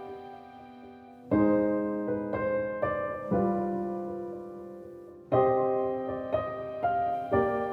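Background piano music: soft chords struck and left to fade, with new chords coming in about a second in and again about five seconds in.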